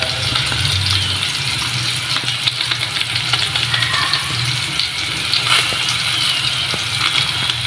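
Yardlong beans and garlic sizzling steadily in hot oil in a stainless steel frying pan, with scattered small pops and clicks. A steady low hum runs underneath.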